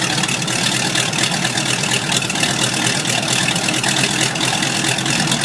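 An engine idling steadily, a dense rough running noise with no change in speed.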